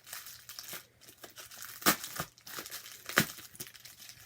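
A mailer package being torn open and crinkled, with two sharp, loud snaps, about two and three seconds in.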